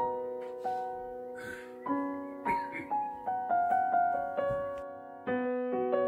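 Background piano music: slow, gentle notes and chords that strike and fade away.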